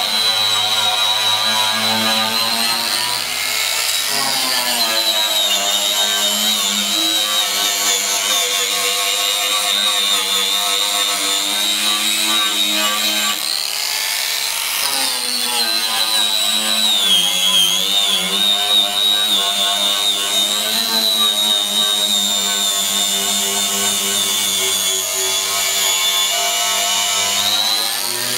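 Hand-held grinder running on a car body panel: a loud, steady high whine that wavers in pitch and sags briefly about halfway through before picking up again.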